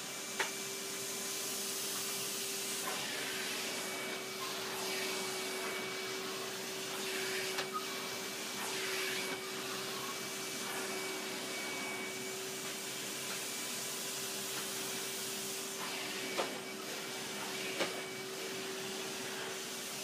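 Henry canister vacuum cleaner running steadily on its high setting, a constant rushing hum with a steady whine. There are a few brief knocks: one about half a second in, two around the middle and two near the end.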